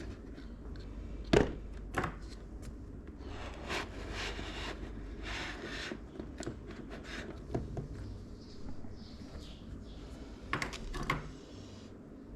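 Hands handling computer parts and their packaging: a few sharp clicks and knocks, the loudest about a second and a half in and a pair near the end, with rustling in between.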